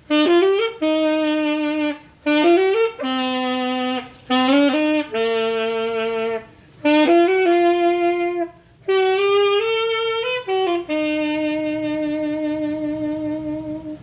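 Solo saxophone playing a slow melody in short phrases, several notes sliding up into pitch, ending on a long held note.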